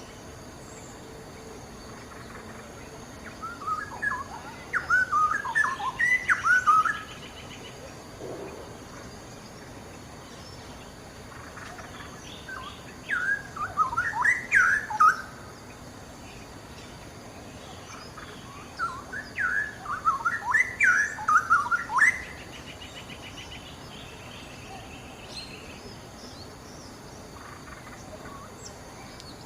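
Straw-headed bulbul (cucak rowo) singing: three bouts of rapid warbled phrases, each a few seconds long, with pauses of several seconds between them.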